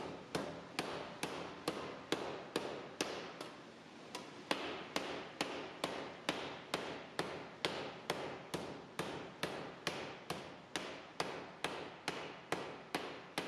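Hammer blows beating a sheet-metal fender panel over a sandbag, a steady rhythm of about two and a half blows a second, shaping the panel into its final curved form.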